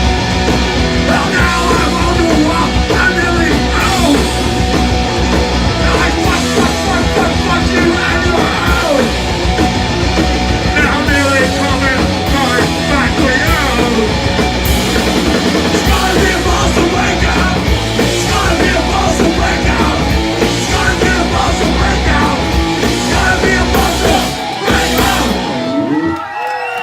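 Live punk rock band, with distorted electric guitars, bass and drums, playing a loud, driving song. About 25 seconds in the song stops abruptly and crowd cheering begins.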